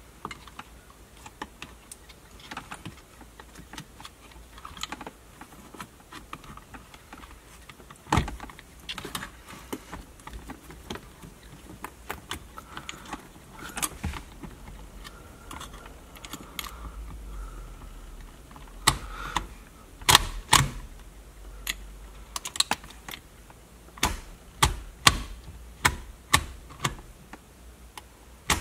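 Irregular clicks and light knocks of small plastic and metal gear-shifter parts being handled and fitted together, growing louder and more frequent about two-thirds of the way through.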